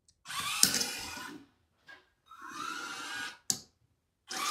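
The two small DC gear motors of a Raspberry Pi robot chassis whirring in three runs of about a second each, with a second's pause between. The first run is at full throttle driving forward, the quieter second at half speed in reverse, and the third at full throttle as the wheels turn opposite ways to spin the robot in place. A sharp click comes just before the third run.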